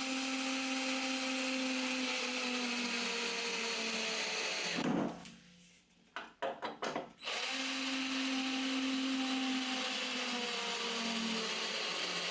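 Power drill driving screws into wood: two runs of about five seconds each, the motor's pitch sinking slowly as each screw tightens, with a few clicks in the short pause between them.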